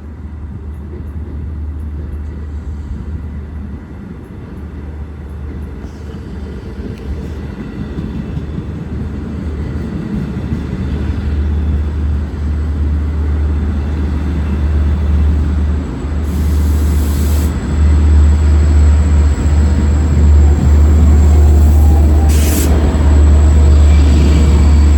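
A train rumbling and growing steadily louder as it approaches, with two brief hisses about 16 and 22 seconds in.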